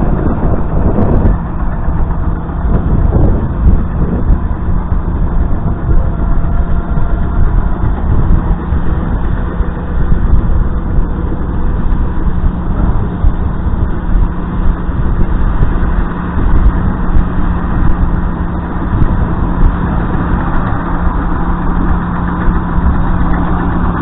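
Engine running steadily at an even speed, a continuous low rumble with a constant hum.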